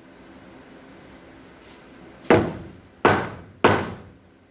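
Three sharp hammer blows on the metal parts of an old vise, each ringing briefly, the last two close together in the second half. The blows sound harder than the work needed: the part moved easily.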